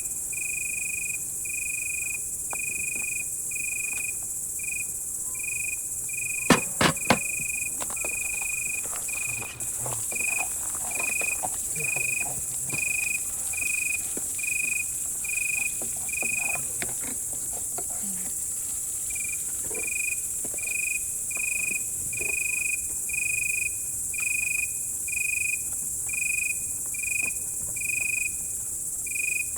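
Crickets chirping in a slow, steady rhythm, about one and a half chirps a second over a constant high insect hiss. Three sharp knocks stand out about six and a half seconds in, with a few fainter clatters around them.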